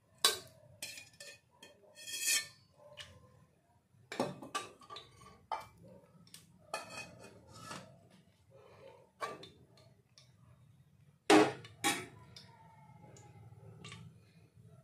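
Long steel spoon clinking and scraping against the inside of a pressure cooker as cooking oil is poured in and spread over its base, with scattered knocks and two louder clanks near the end.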